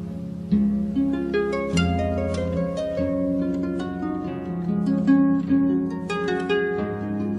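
Calm harp-like plucked-string music: a flowing run of ringing plucked notes over held low bass notes.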